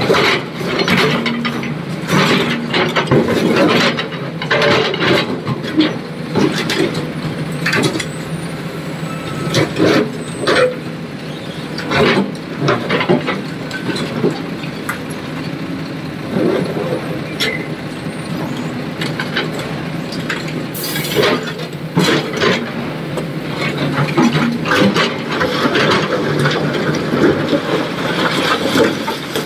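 Heavy diesel machinery running steadily under repeated irregular clanks and knocks of stone and steel, as an excavator loads rock into a dump truck. A brief hiss of air comes a little past the middle.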